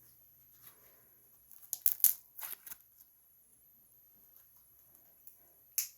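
Glow-in-the-dark slime being squeezed and pulled in the hands, giving a quick run of short crackling pops about two seconds in and one more near the end.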